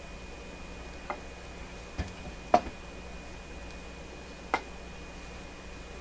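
Four short, light clicks and taps, the loudest about halfway through, as a burnt power cord is handled and set down on a wooden bench, over a faint steady hum.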